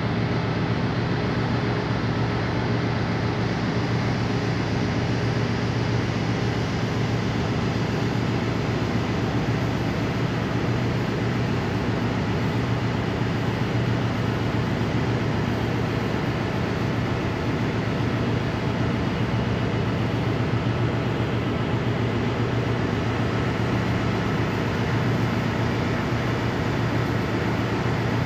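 Steady, low engine drone with an even hum and a rushing noise over it, unchanging throughout.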